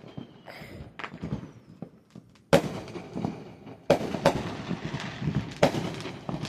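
Fireworks going off around the neighbourhood: a few faint pops, then a sharp bang about two and a half seconds in, followed by more bangs over continuous crackling.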